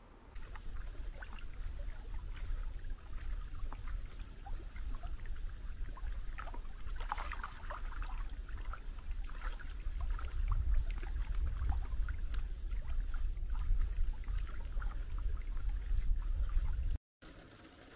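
Small waves lapping and splashing at the loch shore over a steady low rumble of wind on the microphone. It cuts off suddenly about a second before the end.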